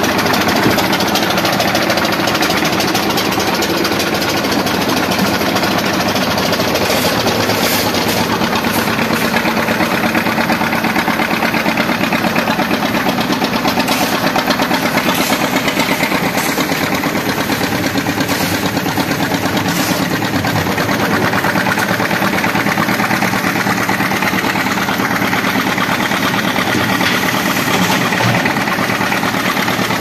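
Single-cylinder diesel engine of a drum concrete mixer running steadily and loudly, driving the mixer through a belt pulley and chain, with a few short sharp knocks now and then.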